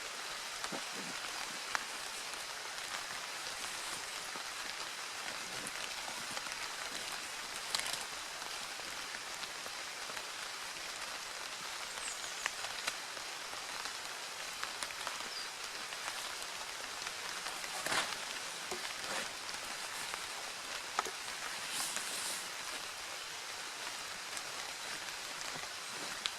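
Steady rain falling, an even hiss with now and then a sharper tap or tick.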